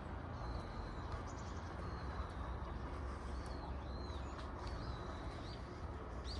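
Small birds giving short, high whistled chirps, one after another, over a steady rushing background noise.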